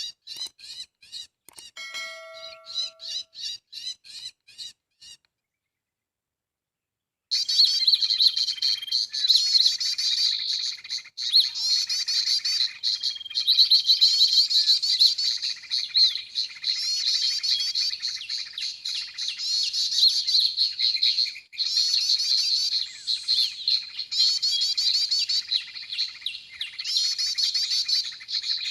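Bird-lure recording of cinereous tit (gelatik batu) calls played through a speaker to draw the birds in. An evenly repeated chirping is broken by a short ringing tone about two seconds in and stops dead. About seven seconds in a loud, dense, unbroken chattering of many chirps starts abruptly and carries on.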